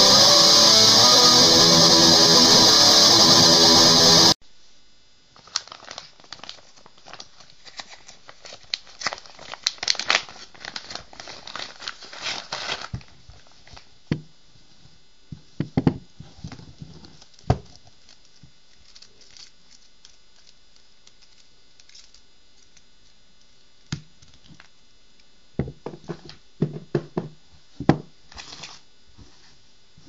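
Guitar music that cuts off suddenly about four seconds in, followed by handling noise: a long stretch of crinkling and rustling, then scattered clicks and knocks as a pocket chain saw with cord-loop handles is handled and laid out, with a flurry of knocks near the end.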